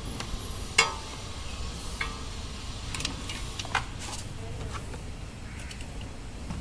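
A few light clicks and taps of car parts being handled by hand in the wheel arch, the loudest about a second in, over a low steady hum.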